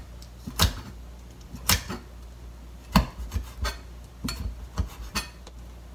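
Kitchen knife slicing a small dried red chili pepper on a cutting board: about nine separate knocks of the blade on the board, spaced unevenly and coming closer together in the second half.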